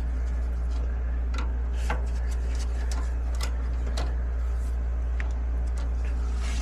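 Light clicks and taps of thermostat wiring being handled at a furnace control board, a few scattered over several seconds, over a steady low hum.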